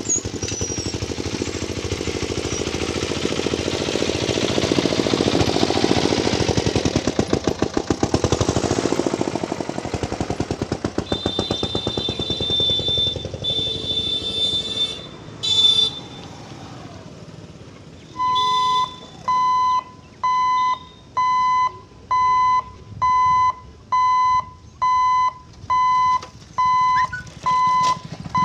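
Level-crossing warning hooter beeping steadily at about one beep a second, the signal that the gate barriers are closing. Before it, road vehicle engines pass and a high horn sounds for a few seconds.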